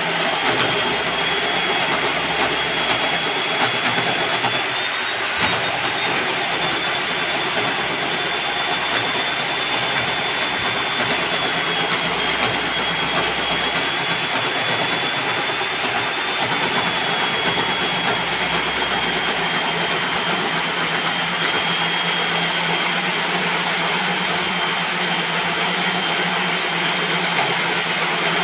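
Electric core drilling machine running steadily as its core bit cuts through a concrete slab: a high motor whine that wavers slightly in pitch over a constant grinding hiss.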